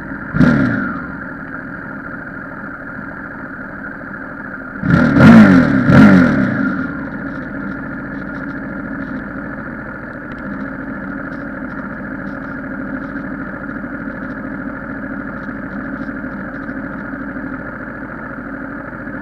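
Motorcycle engine idling steadily while stopped, as vehicles pass close by on the road: one about half a second in and two loud ones in quick succession about five to six seconds in, each dropping in pitch as it goes past.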